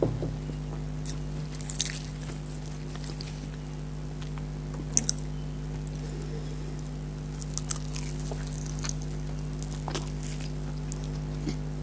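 Close-miked eating: biting and chewing food, with scattered sharp crunches over a steady low hum.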